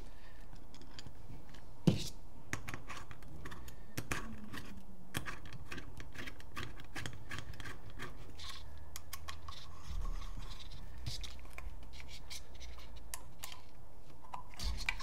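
Small clicks and light scraping of a paintball gun's plastic and metal parts being handled and fitted together, with one sharper click about two seconds in.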